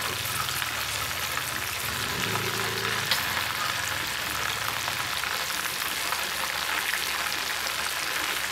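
Panko-coated silkworms deep-frying in hot oil, a steady crackling sizzle, with light stirring as chopsticks and a wooden spatula turn them in the pan.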